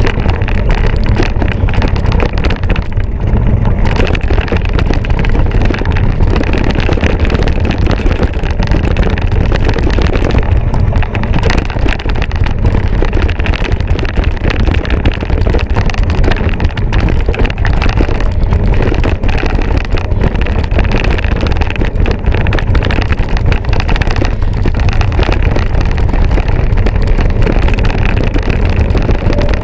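Wind buffeting the microphone of a racing mountain biker's on-board camera, loud and steady, over a constant clatter of small knocks from the bike on rough trail.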